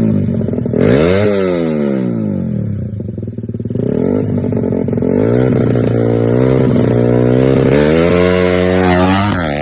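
Modified Honda C70 motorcycle engine revving up and falling back several times, with a long rising climb in pitch in the second half that drops off sharply near the end.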